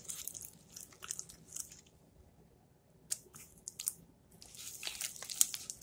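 Hands squeezing and kneading sticky blue glue slime, made with activator and shaving cream, in a plastic bowl: wet squelching and crackling, with a short pause around the middle.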